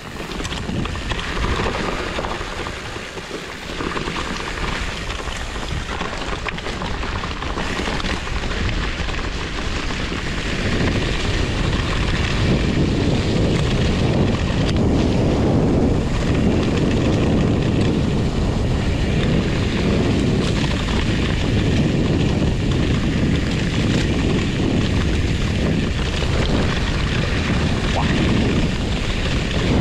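Wind rushing over the camera microphone during a fat-bike ride along a wet trail, a loud steady rumble that grows louder about ten seconds in.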